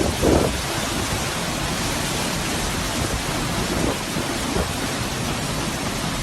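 Hurricane wind and driving rain: a steady rushing noise, with a few gusts buffeting the microphone near the start.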